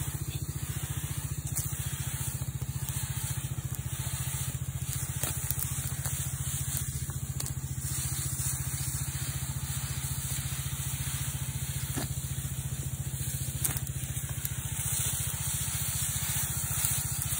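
Small Robin petrol engine running steadily at constant speed, driving a Shancin power sprayer pump, with the steady hiss of herbicide spray from the hand lance on top.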